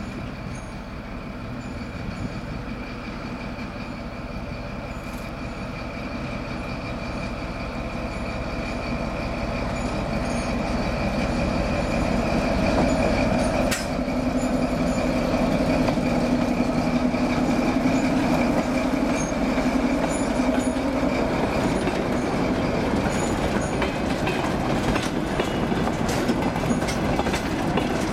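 A TGM4 diesel-hydraulic shunting locomotive's engine running as it draws a train of boxcars toward and past the listener, growing louder through the first half, its note dropping about halfway through. Near the end the wheels of the passing boxcars click over the rail joints.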